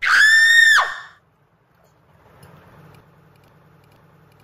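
A single loud, high squeal, held at one pitch for under a second and then dropping sharply away.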